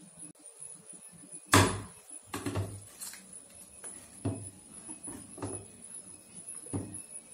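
Hard knocks and clatter of kitchen utensils as a pathiri press and metal lids are handled on a counter: one loud knock about a second and a half in, then a series of lighter, irregular knocks and clacks.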